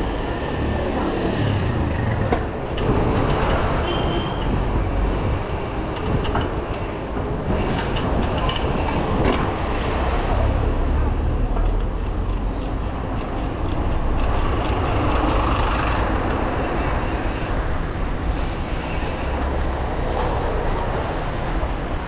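Wind rushing over the handlebar camera's microphone, with tyre and road noise from a mountain bike being ridden along a street. Runs of sharp clicks and rattles come from the bike around the middle.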